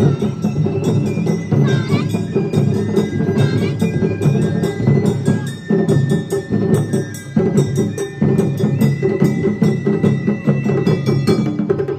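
Suzume odori festival band playing live: bamboo transverse flutes (shinobue) sounding held high notes over rapid, steady drum and percussion strikes.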